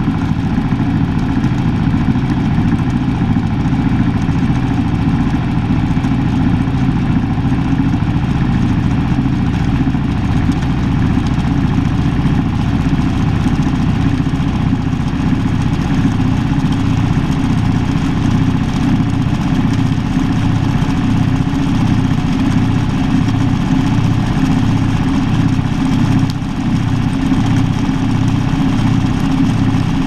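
Shacklock (Fisher & Paykel) Gentle Annie top-loading washing machine spinning, heard from inside the tub: a loud, steady motor and drive hum with a low pulse that repeats about once a second.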